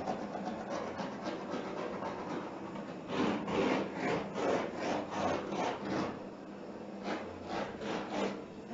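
Handheld gas torch hissing with its flame, played over a wet acrylic paint pour to bring up cells. The rasping noise comes in quick, uneven surges.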